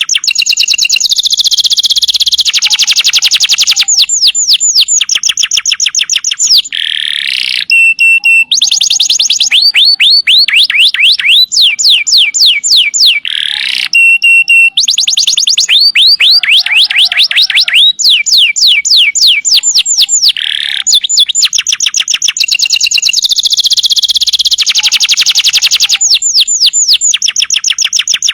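Domestic canary singing a long, loud song of rapid trills: runs of quickly repeated notes, many sweeping down from high pitch, changing to a new trill every few seconds with only brief breaks.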